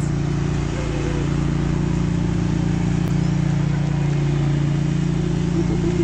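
A steady low motor hum that holds an even pitch throughout.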